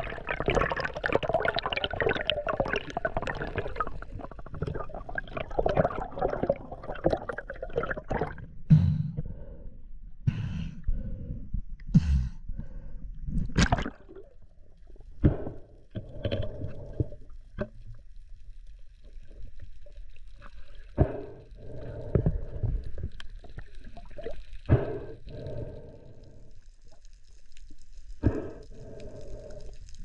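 Water heard through an underwater camera's microphone: dense bubbling and gurgling for the first several seconds, then quieter, with scattered knocks and clicks.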